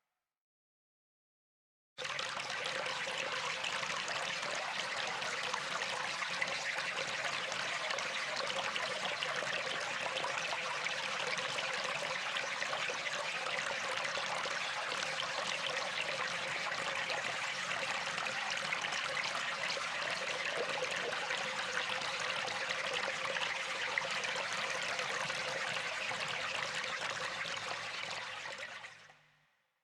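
A river flowing: a steady rush of running water. It starts suddenly after about two seconds of silence and fades out near the end.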